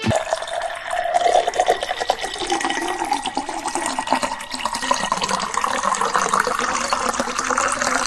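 Water pouring from a kitchen faucet into a glass, the pitch of the filling rising steadily as the glass fills up.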